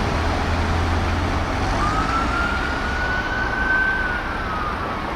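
Fire engine siren sounding one slow wail, rising from about two seconds in, holding, then falling away near the end, over steady road and engine noise.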